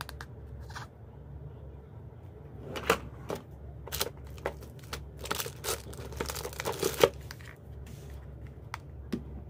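Rustling, crinkling and light clicks of hands handling Sony CycleEnergy plastic power banks. The sounds come in a cluster of sharp knocks and rustles from about three to seven and a half seconds in, loudest near the start and the end of that stretch.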